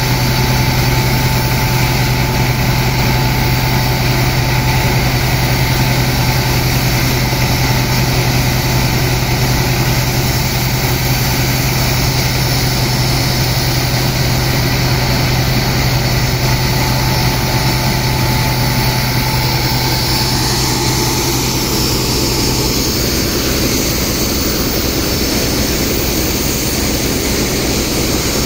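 Steady drone of a sand-pumping engine running continuously, under the rushing hiss of a high-pressure water jet blasting into wet sand.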